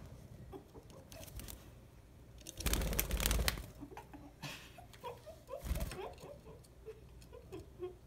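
Pet budgies in a wire cage making small clicks and scratches and a few soft short chirps. A loud rustling burst comes about three seconds in and lasts about a second, with a shorter one near six seconds.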